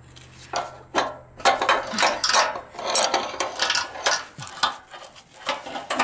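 Wrench and metal parts clinking and scraping against the steel bed frame of a Wood-Mizer LT15 sawmill as the bed legs are adjusted and tightened during leveling: a quick, irregular run of sharp clinks and rasps.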